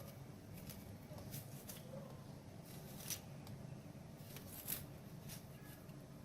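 Faint, irregular scrapes and clicks from fresh ginger root being peeled and grated by hand.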